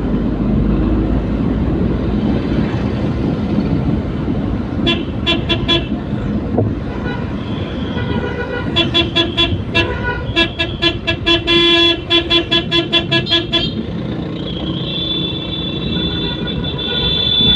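Vehicle horn tooted in quick repeated bursts, a few short toots and then a fast run of them, followed by a longer steady blast, over steady engine and road noise in moving traffic.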